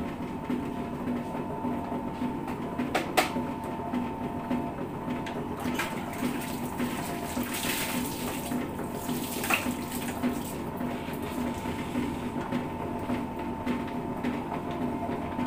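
Electric dough-mixing machine running, its motor humming steadily while the paddle churns wet minced-chicken dim sum filling. A couple of sharp knocks, about 3 and 9½ seconds in.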